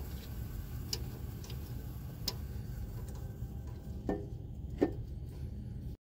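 A ratchet with an 8 mm socket working a nut on a truck starter's cable terminal: a handful of separate metallic clicks, the loudest near the end, over a low steady rumble.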